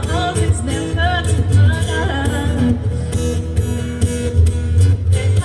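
Live steel-string acoustic guitar played with a woman singing over it; her singing drops out about three seconds in while the guitar carries on.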